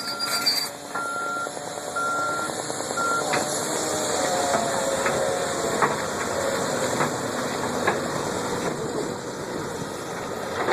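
A construction machine's reversing alarm beeps four times at about one beep a second, then stops, over its steady diesel engine. Scattered clanks and a short squeal of a gliding tone follow as the machine works.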